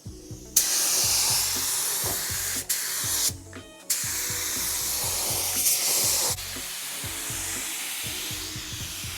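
Air spray gun spraying automotive primer, its trigger pulled in passes: a loud steady hiss of air and atomised primer. It starts about half a second in, stops twice briefly, then runs on and drops a little in level about two-thirds of the way through.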